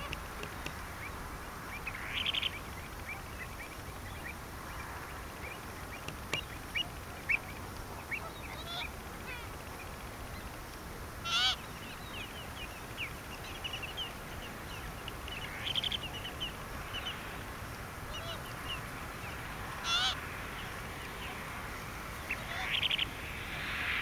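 Greater flamingos calling: a goose-like honk every few seconds, with many short, softer calls from the flock in between.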